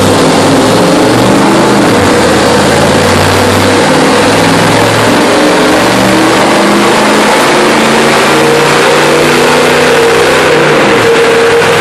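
Chevrolet Z71 pickup's engine running loud and hard under load on a chassis dynamometer, its pitch holding level and then shifting in steps several times.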